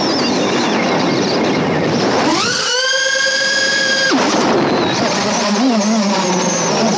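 Diatone Roma L3 FPV quadcopter's Xing 1404 4600kv brushless motors and props whining in flight, heard from the drone itself with a steady rush of air. The whine sweeps up steeply about two and a half seconds in, holds for a second and a half as the throttle is punched, then drops away.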